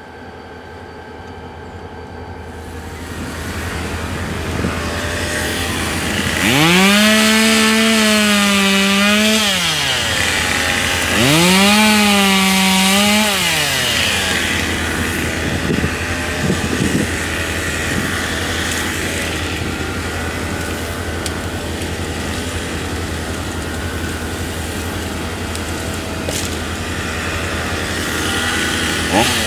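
Gas chainsaw revved to full throttle twice, each time rising in pitch, holding for two to three seconds and dropping back, then running on steadily as it cuts into the trunk of a fallen tree.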